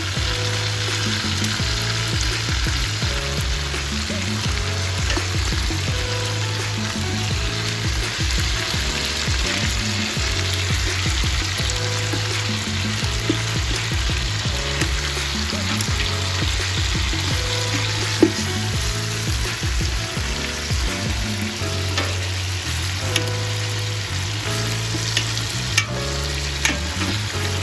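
Beef short ribs sizzling steadily in hot fat in a stainless steel pot, with a few sharp clicks about two-thirds of the way in and near the end. Background music with a bass line plays underneath.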